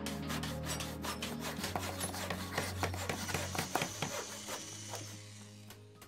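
Rapid scratching, rasping strokes over sustained music tones, the whole fading out near the end.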